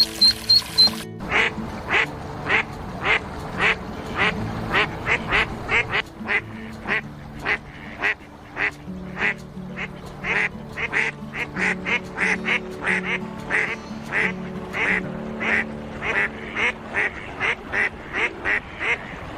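Ducks quacking over and over in a steady run of short calls, about two to three a second. About a second in, a short bit of music cuts off.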